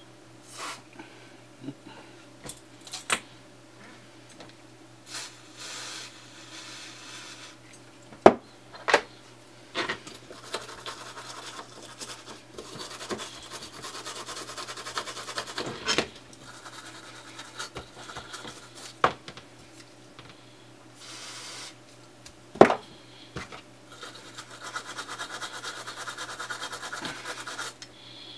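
Toothbrush scrubbing solder flux and flux remover off a small circuit board, in stretches of rapid scraping strokes. Several sharp knocks come as the board and tools are handled.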